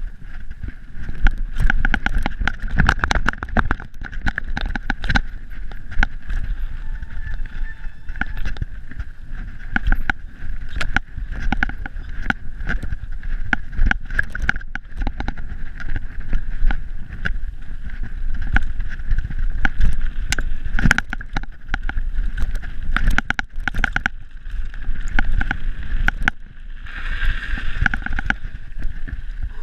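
Mountain bike descending a rooty dirt trail at speed: a constant rattle of sharp clicks and knocks as the wheels and frame hit the roots, over a low rumble of tyres and wind on the microphone and a steady high hum.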